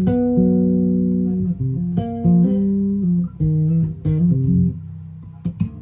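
Ray Rogers R Bass Custom 6 six-string electric bass with Bartolini pickups, played solo: plucked notes held and ringing together, breaking into shorter, quieter plucks near the end.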